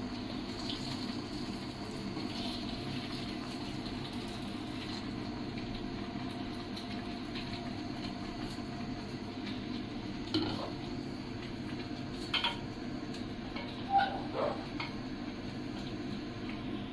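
Steady rushing noise of a pot of curry on a lit gas burner, with a few short knocks and scrapes of a wooden spatula against the stainless steel pot as it is stirred, the loudest about ten and fourteen seconds in.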